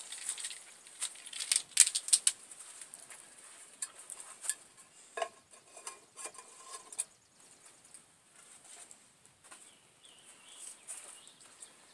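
Clicks and light knocks of the metal Swiss army mess kit being handled and set on a homemade alcohol stove. They come thickest in the first couple of seconds, then sparser, with a short metallic ring or two near the middle.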